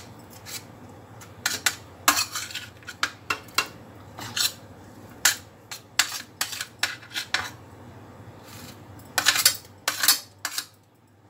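Metal spoon scraping and clinking against a metal tray while scooping roasted eggplant flesh out of the charred skins: irregular clicks and scrapes, with a louder cluster about nine seconds in.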